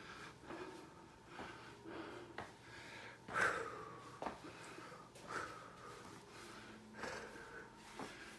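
Heavy breathing of a hiker climbing steep stone steps, with the scuff and tap of footsteps on the stone. One breath about three seconds in is louder than the rest.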